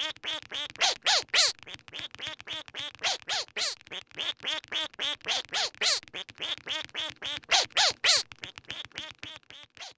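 A fast run of duck quacks, about four or five a second, with a few louder quacks among them, fading out near the end.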